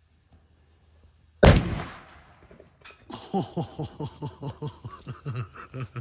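A homemade rocket goes off inside a wooden barn with one sudden loud bang that rings away over about half a second. A couple of seconds later comes a run of short sounds, each falling in pitch, about three a second.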